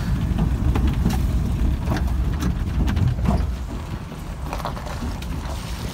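Land Rover driving slowly over a rough, stony wadi bed: a low engine and road rumble with scattered knocks and rattles from the body and suspension. It becomes quieter after about three and a half seconds.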